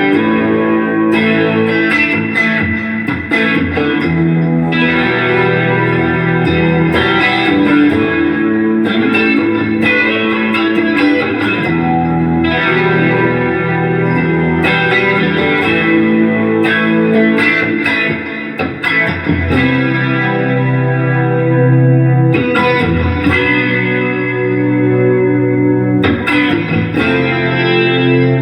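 Electric guitar, a Telecaster with Seymour Duncan pickups, played through amplifiers with effects: strummed chords that change every couple of seconds.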